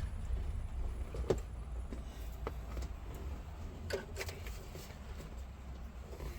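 A few light clicks and knocks from parts being handled while a glove box door is fitted into a car dash, with a pair close together about four seconds in, over a low steady hum.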